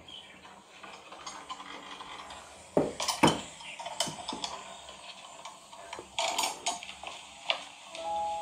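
Kitchen clatter of dishes and utensils being handled: a run of light clinks and knocks, with two louder knocks about three seconds in and another cluster past the middle. A steady tone begins near the end.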